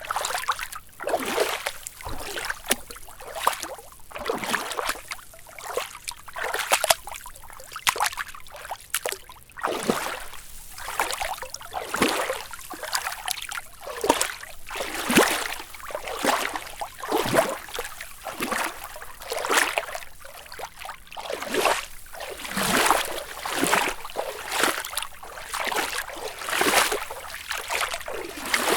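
Footsteps wading through knee-deep water: each stride pushes through the water with a splash and slosh, in a steady walking rhythm of about one step a second.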